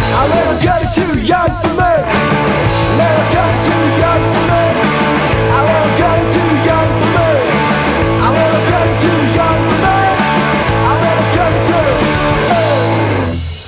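Garage rock band playing, with electric guitar lines bending over a steady low bass. The song ends near the end, the sound dying away quickly.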